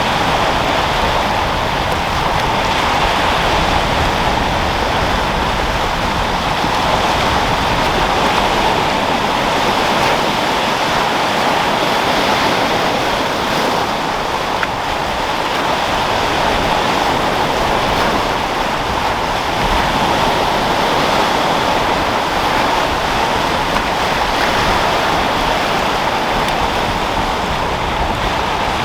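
Sea waves rolling and breaking in a steady rush of surf, with wind.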